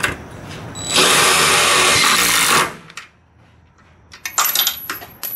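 Cordless drill running under load for about a second and a half, boring through the heavy double-layered sheet steel of a school bus body panel, then stopping. A few sharp clicks and light metallic rattles follow near the end.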